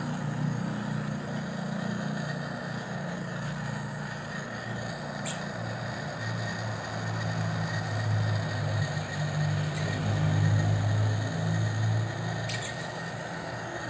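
A low engine hum, like a motor vehicle running nearby, growing louder in the second half, with a few light clicks.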